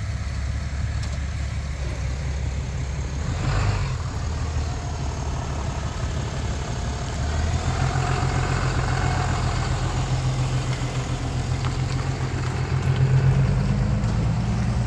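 Ram pickup truck's engine idling steadily, a little louder in the second half.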